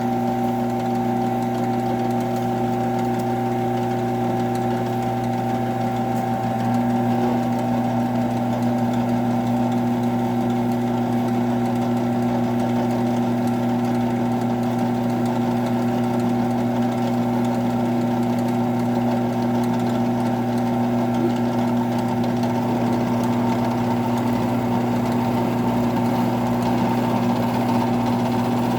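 Electric drill press motor running steadily with a constant hum, its pitch and loudness shifting slightly about six or seven seconds in.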